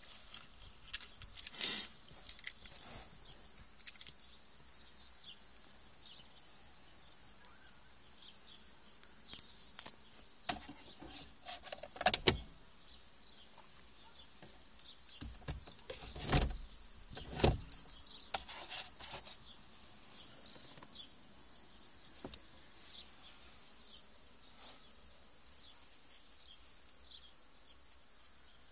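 Scattered clicks and knocks of a phone camera being handled and moved inside a parked car with the engine off, the loudest about halfway through. Faint high chirps come and go in the background.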